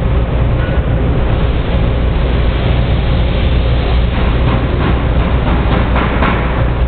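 HiMEC Vert-A-Con 90-degree vertical belt conveyor running, its blue cleated sidewall belts travelling over the head pulleys: a loud, steady mechanical running noise with a low hum and faint, irregular ticks.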